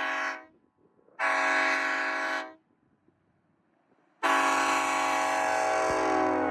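Nathan Airchime K5-series five-chime train horn blowing its chord in separate blasts. A blast already sounding cuts off about half a second in, a second blast of just over a second follows, and a long blast starts about four seconds in, its pitch sagging near the end.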